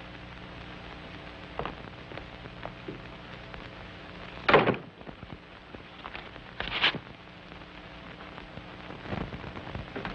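Hiss and low hum of an old optical film soundtrack, broken by a few brief knocks and rustles of handling. The loudest comes about four and a half seconds in, and another near seven seconds.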